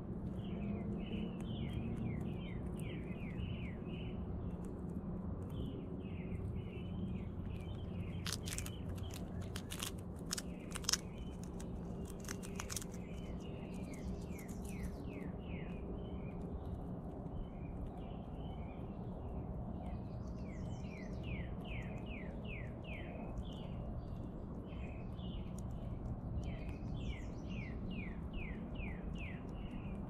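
Backyard songbirds chirping in repeated runs of quick descending notes over a steady low background rumble, with a handful of sharp clicks about a third of the way through.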